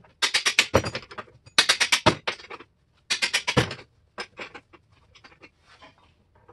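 Impact driver hammering in short bursts of rapid impacts, three of them in the first four seconds, then fainter scattered clicks. It is turning a rusted axle nut hard enough to shear the cotter key through it.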